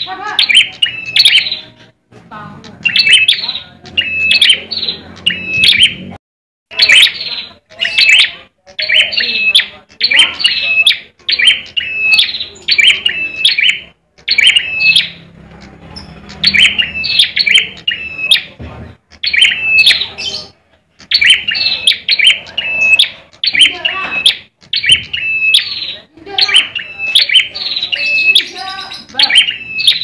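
Caged ciblek (a prinia) calling in quick, sharp chirping phrases, one burst after another about every second with brief pauses between them: the 'tarung' fighting call of a bird facing a rival.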